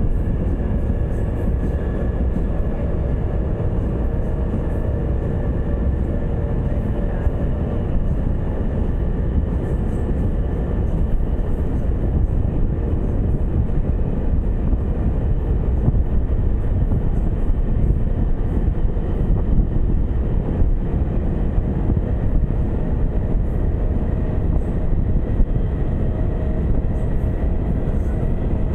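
A train running steadily along the track, heard from on board: a constant rumble of wheels on rail with a faint steady hum over it.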